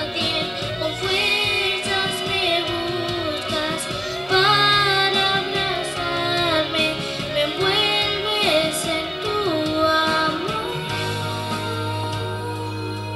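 A young girl singing a Christian worship song into a microphone over a backing track. Her voice stops about ten and a half seconds in, leaving the accompaniment holding a steady low chord.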